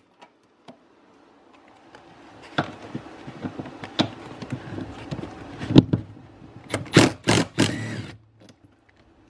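Cordless impact gun running on a 12 mm seat-mounting bolt, driving it out, with several sharp clacks along the way before it stops suddenly.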